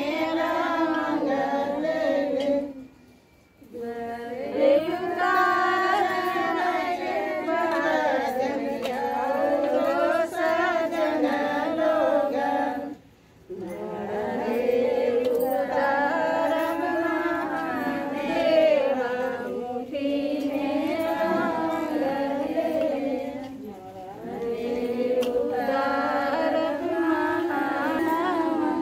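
Women singing a song together in long melodic phrases, broken twice by short pauses.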